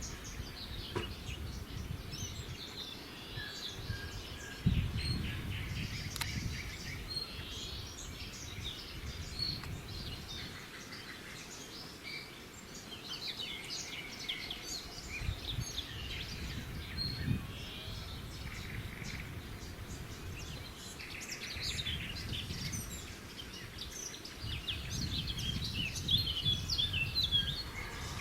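Small birds chirping and calling over one another, short high chirps and trills without a break, over a low rumbling noise that comes and goes.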